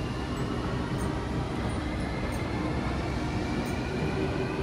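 Steady mechanical rumble of subway station machinery on a descending escalator, with a faint high whine slowly rising in pitch.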